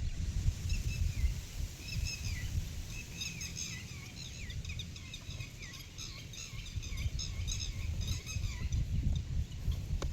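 Birds chirping outdoors: many quick, overlapping calls from about a second in until near the end, over a steady low rumble.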